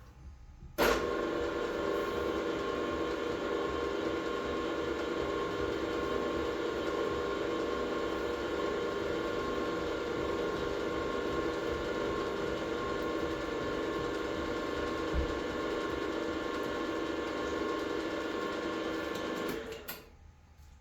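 An electric motor-driven workshop machine switched on about a second in, running steadily at an even pitch, then switched off near the end and winding down.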